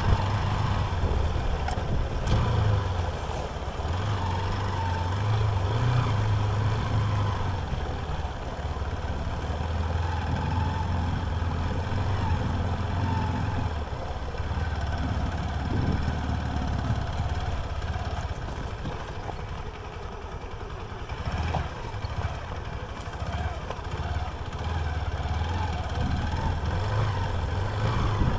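The single-cylinder engine of a Hero Xpulse 200 Rally motorcycle running at low revs, its deep note rising and falling a little.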